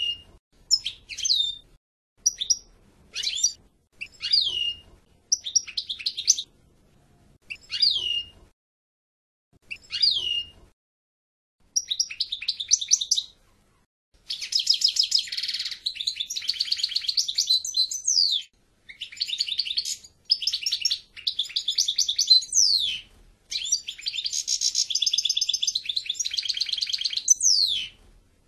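European goldfinch singing: short twittering phrases with falling notes about once a second, then from about halfway longer runs of rapid trills broken by quick downward-sliding notes.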